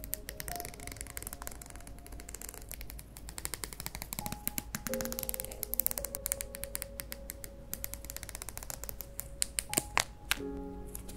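Metal scissors snipping a clear sticker sheet in many short, crisp cuts, with a cluster of louder snips near the end. Soft background music with a few held notes plays underneath.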